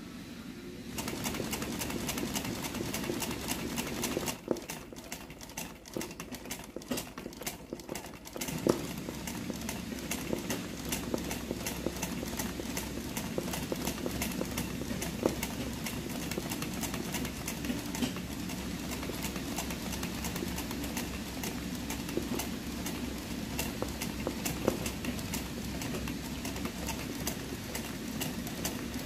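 Sewing machine running for free-hand embroidery, the needle stitching in a rapid, even run of clicks. It starts about a second in, drops to a few scattered clicks from about four to eight seconds in, then runs steadily again.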